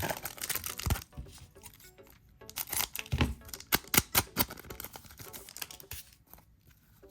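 A trading card booster pack wrapper torn open and crinkled, with the cards handled, in two rustling bouts, the first right at the start and the second from about two and a half seconds in. Background music plays under it.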